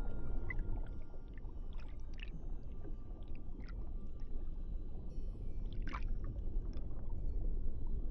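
Underwater sea ambience: a steady low rumble with scattered faint clicks and short squeaks, the strongest about six seconds in.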